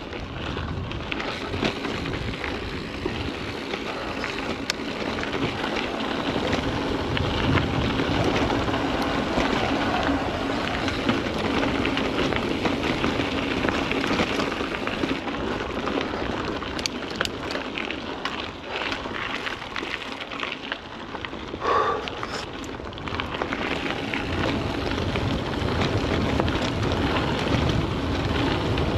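Mountain bike being ridden fast over a dirt and gravel singletrack: the tyres crackle and rattle over the ground, mixed with wind on the microphone. There is a brief squeak about two-thirds of the way through.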